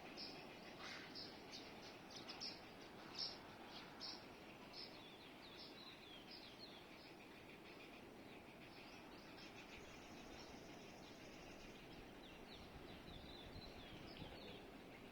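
Birds chirping faintly: many short, high chirps that sweep downward, busiest in the first half and thinning later, over a faint steady background hiss.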